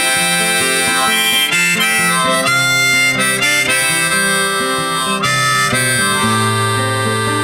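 Instrumental break of a folk song: a harmonica playing a melody of held notes over acoustic guitar.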